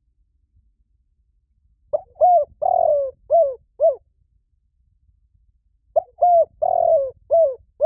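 Decoy spotted dove cooing: two phrases, about two and six seconds in, each of about five short notes that drop in pitch, the middle note drawn out longer.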